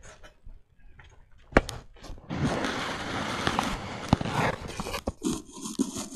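Handling noise on the recording device's microphone: a couple of sharp knocks, then a few seconds of loud rustling and scraping as clothing and a body brush against it, with scattered bumps near the end.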